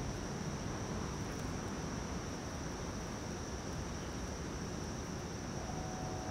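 Crickets chirping as one steady, high-pitched drone, over a low, even rumble of background noise.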